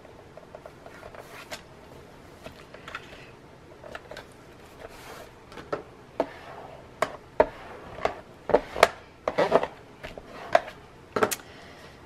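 Cardstock being handled, positioned and pressed down onto a scoring board: light paper rustling and a series of sharp taps and clicks, louder and more frequent in the second half.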